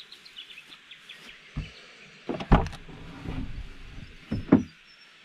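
Car's rear side door being unlatched and swung open, with a sharp clunk about two and a half seconds in and another loud thud near the end, and smaller knocks between.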